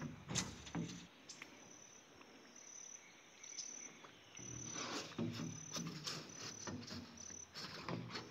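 Insects chirping in a high, steady trill that breaks into short pulses, with scattered knocks and scrapes from a flat-bottomed metal boat being poled along the bank.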